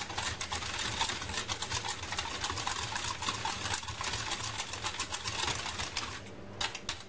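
Wire hand whisk beating melted butter and sugar in a stainless steel bowl, the wires clicking rapidly and rhythmically against the metal, with a brief pause a little after six seconds in.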